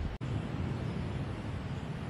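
Wind rumbling on the microphone outdoors, a steady low buffeting noise, which drops out for an instant about a fifth of a second in.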